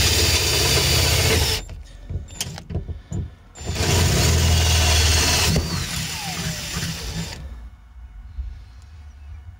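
Bauker 18V cordless drill drilling a hole into the thin metal of a tie-down point. It runs, stops about a second and a half in, gives a few short blips, runs again from about four seconds in, then winds down and stops.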